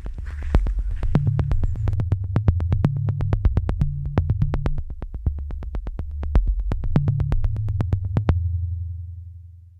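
Electronic background music: a synthesizer bass line under a steady ticking beat, about four ticks a second. The beat stops near the end and the bass fades out.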